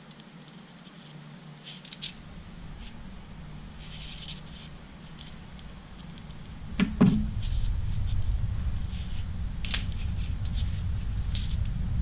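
Light clicks and taps of jumper-wire connectors being handled and pushed onto an Arduino Nano's header pins, with a sharper knock about seven seconds in. A low rumble comes in under them and grows loud in the second half.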